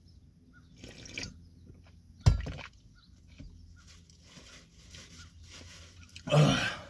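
A person gulping milk from a metal tumbler, with a sharp knock about two seconds in, then a loud breath near the end.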